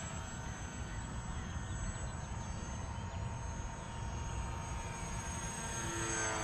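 Small electric RC plane's brushless motor (Suppo 2204/14) and 7-inch propeller buzzing in flight, growing louder near the end as it passes close. A steady low rumble runs underneath.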